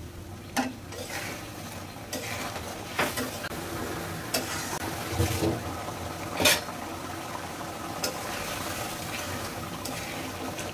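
Spiced gravy of a stinging catfish curry bubbling and sizzling in a pan while a spatula stirs it, the fish being cooked down in the masala. The spatula scrapes and knocks against the pan about six times, most loudly about six and a half seconds in.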